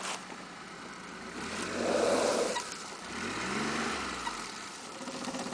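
A motor vehicle's engine revving up and easing off again about three seconds in, with the sound of the vehicle moving before that.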